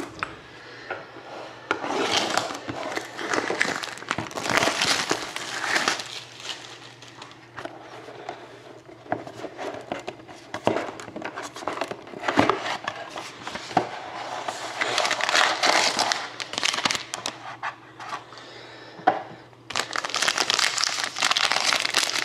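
Plastic wrapping and a cardboard trading-card box being torn open and handled: irregular crinkling and rustling in stretches, with sharp clicks now and then. The crinkling becomes denser and steadier near the end.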